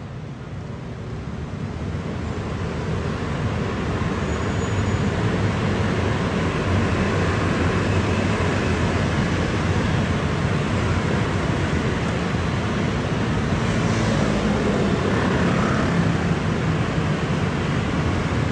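A dense stream of motor scooters riding past together, their many small engines blending into one continuous wash of engine noise that swells over the first few seconds and then holds steady.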